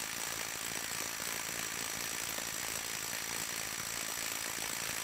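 Brushed Hart HPIW01 cordless impact wrench hammering steadily in forward, driving against a torque-test rig as its torque builds toward about 300 ft-lbs.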